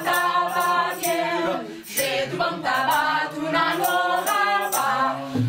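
A small group of men and women singing a short repeated refrain together, a chant-like song sung in unison.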